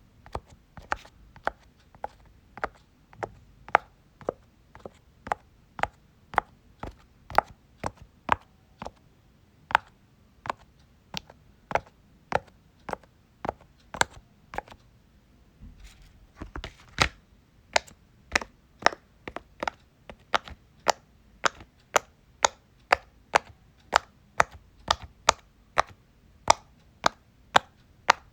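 Silicone pop-it fidget toy, its bubbles pressed and popped one after another: a sharp pop roughly twice a second, coming a little quicker in the second half.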